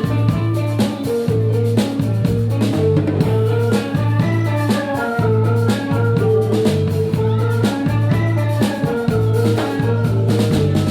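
A live band playing an instrumental groove, with a repeating bass line under drums and percussion and melody notes moving above.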